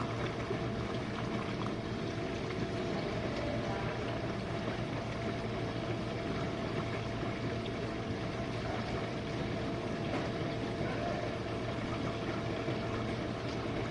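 Jenn-Air dishwasher running a wash cycle: a steady motor hum with water swishing inside the tub.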